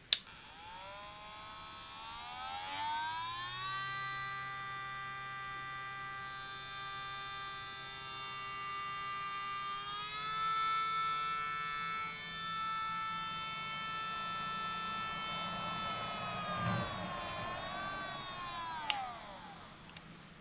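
Casifor stepless-speed electric dog nail grinder switched on with a click, its small motor whining and climbing in pitch over the first few seconds, then running steadily. The pitch steps up slightly about halfway through and wavers near the end, as the stepless speed is varied. Another click switches it off and the whine winds down.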